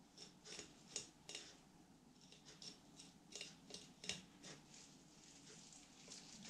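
Fillet knife cutting through a large corvina along its backbone: faint, irregular crisp clicks and scrapes from the blade working against the bones, the sharpest about a second in and again about four seconds in.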